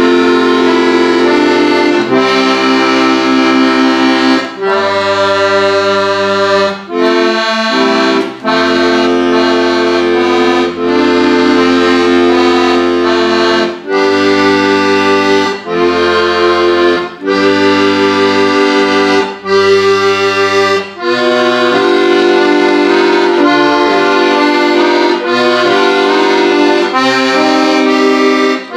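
Piano accordion played solo: a melody over held bass notes and chords, with short breaks between phrases.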